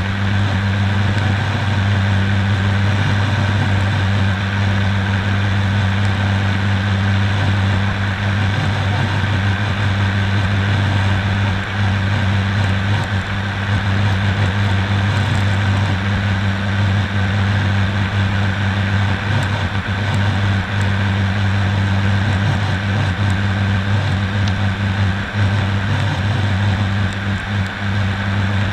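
ATR 72-600 turboprop in flight, heard inside the cockpit: its Pratt & Whitney PW127M engines and six-bladed propellers give a loud, steady low drone with a second tone above it, over an even hiss.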